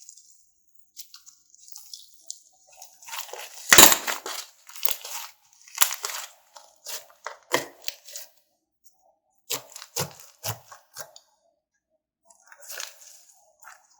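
Foam-ball slime mixed with clay being squeezed and pulled by hand, giving irregular short crackles and pops with brief quiet gaps; the loudest pop comes about four seconds in. The foam balls are unbaked, so they give little of the hard crunch that baked ones would.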